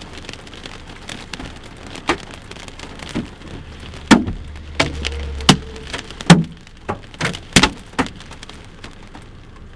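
Hailstones about an inch across striking a car's body and glass, heard from inside the car: irregular sharp knocks, about nine of them, the loudest around four and six seconds in, over the steady hiss of heavy rain.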